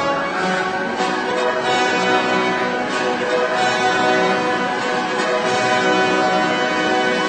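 Orchestral music with sustained held notes, steady in loudness; no distinct firework bangs stand out.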